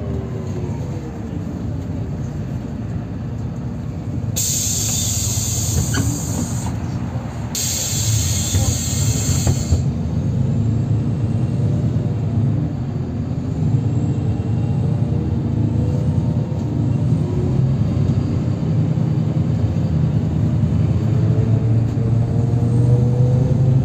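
Inside a NefAZ 5299-20-32 city bus at highway speed: steady low engine and road rumble, with the drivetrain's pitch falling at the start and rising again near the end. A loud hiss comes in two stretches about four to ten seconds in.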